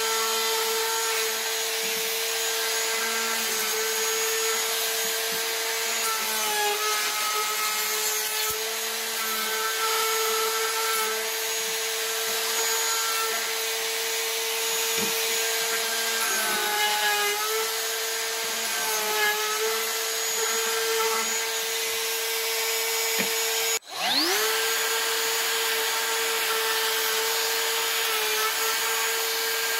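Handheld trim router running at high speed and cutting wood, a steady high whine that sags slightly in pitch as the bit takes the wood. Near the end the motor drops out for a moment and winds back up.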